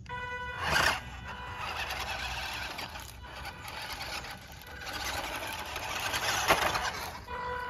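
WPL D12 RC mini truck driving over gravel: its small electric drive motor and gearbox run with a steady high-pitched whine, over the rustle and crunch of the tyres on loose stones. Two louder surges come about a second in and again near the end.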